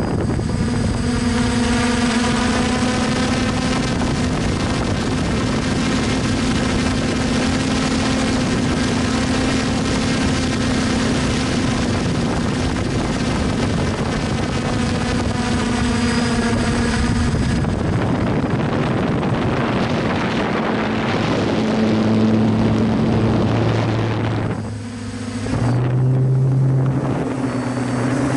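Hexacopter's electric motors and propellers running in flight, heard from its own camera as a steady whirring hum with wind rush. The pitch shifts about two-thirds of the way through and again near the end, with a brief drop in level just before the last shift.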